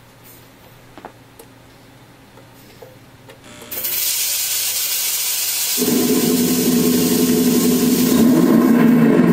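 A faint click or two, then a smoke machine starts hissing about four seconds in. About two seconds later a loud, steady rumble with a low hum joins the hiss.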